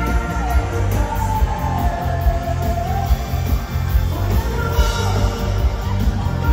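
A dansband playing live: a female vocalist singing into a microphone over electric guitar, keyboards and drums, with a steady beat.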